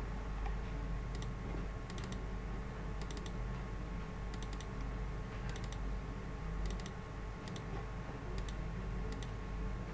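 Computer mouse buttons clicking, mostly in quick pairs like double-clicks, about once a second, over a steady low hum and hiss.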